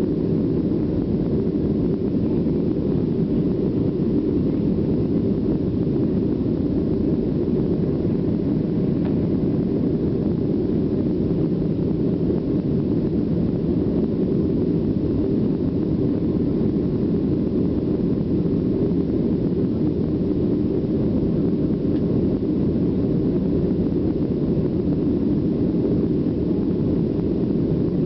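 Steady roar of jet engines and airflow heard inside a Boeing 737's passenger cabin while climbing after takeoff, a low even rumble that holds at one level.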